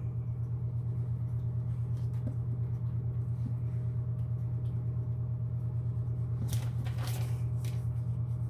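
A steady low electrical-type hum with a fainter steady tone above it. Near the end, a thin plastic sheet crinkles as the dough is lifted on it.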